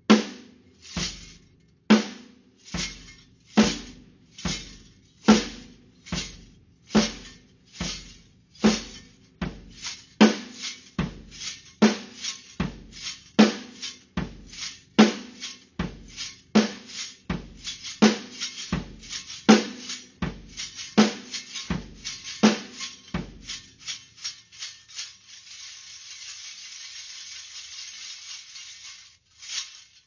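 Drum kit beat, bass drum and snare struck about once a second with lighter strokes between, played together with a hand-held metal junk rattle made of 40+ pieces of metal. Near the end the drums stop and the rattle is shaken alone as a steady bright jangle for a few seconds, closed by one last hit.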